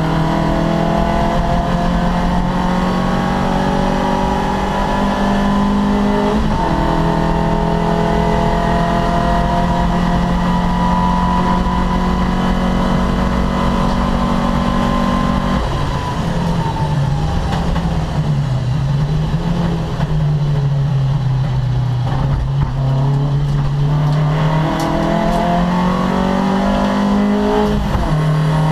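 Opel Kadett C racing car's engine running hard at steady high revs for about fifteen seconds, then falling in pitch as it is backed off and climbing again as it is driven back up, with a sudden shift just before the end.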